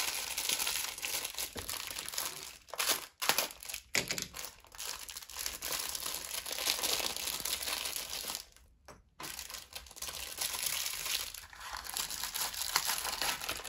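Crinkly packaging around incense cones being handled and opened, a near-continuous crackling rustle with a few short pauses.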